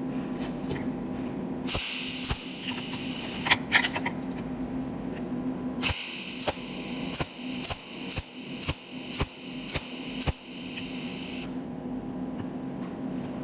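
Cold welding machine firing pulse after pulse on brass: a sharp snap for each weld spot, about two a second in the second run, over a high hiss, with a steady electrical hum underneath. There are two runs of welding, the first with only a few snaps.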